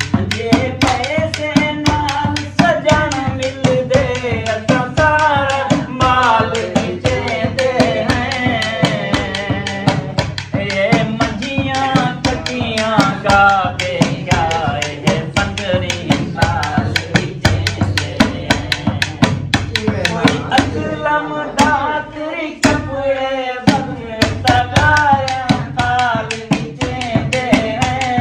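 A man singing a folk melody into a microphone over a hand drum beaten in a fast, steady rhythm. The drum strokes run throughout, with the voice carrying long, bending melodic lines above them.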